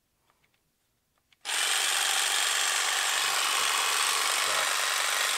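Ryobi brushless cordless jigsaw switched on about a second and a half in and running free with its trigger locked on, a steady motor whir with the blade reciprocating in the air, set to low speed.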